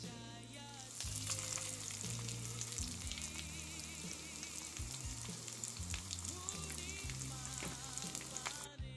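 Food sizzling as it fries in hot cooking oil in a pan, with steady crackle and hiss, over background music.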